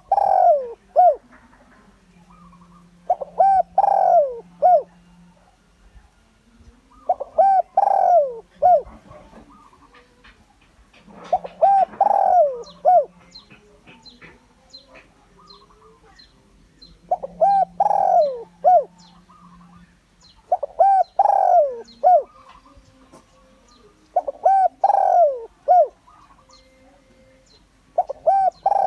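Spotted dove cooing: a phrase of several coos repeated about every three to four seconds, with faint high chirps from other small birds in between.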